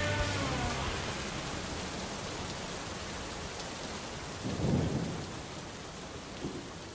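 Steady rain with a low rumble of thunder swelling up about four and a half seconds in, the whole slowly fading out; the tail of rock music dies away in the first second.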